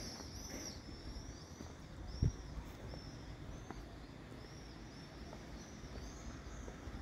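A bird calling over and over in short, high, arching chirps, over a steady low outdoor rumble; one soft thump about two seconds in.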